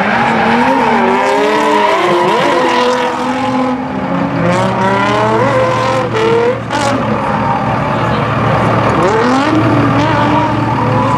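Two drift cars sliding in tandem at high revs, their engine notes rising and falling with the throttle over the noise of the sliding tyres.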